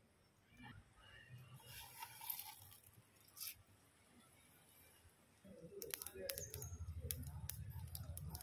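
Faint crackling and popping from a wood fire burning under a clay pot of heating oil. A low rumble with quick pops comes in about halfway through and grows.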